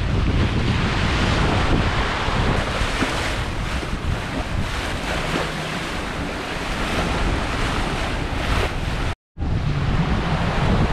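Wind buffeting the microphone over the rushing and splashing of a sailing yacht's bow wave along the hull under sail. The sound drops out for an instant a little after nine seconds in.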